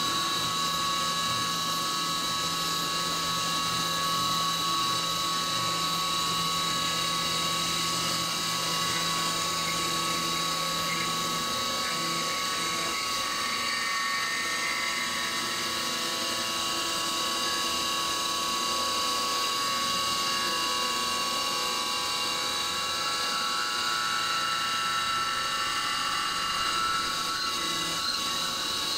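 CNC milling machine face-milling a steel plate under flood coolant, giving a steady high-pitched whine of several held tones over a hiss of cutting and coolant spray. A low hum underneath stops partway through.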